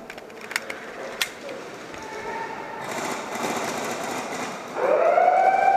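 A few sharp clicks, then about five seconds in a siren winds up quickly in pitch and holds a loud steady tone.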